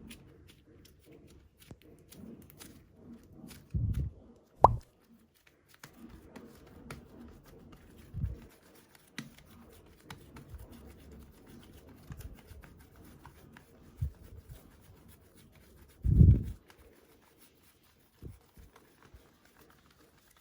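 Hands squeezing and pressing soft super clay, with faint handling noise and several short, low plops and thuds, the loudest about four seconds in and again near sixteen seconds.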